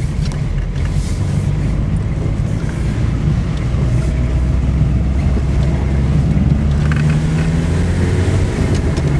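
Peugeot 106 engine and road noise heard from inside the cabin while driving, with the engine note rising steadily as the car gathers speed over the second half.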